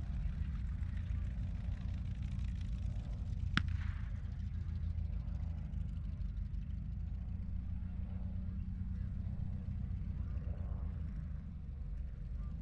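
Tank engines running with a steady, heavy low rumble, and a single sharp gunshot crack about three and a half seconds in.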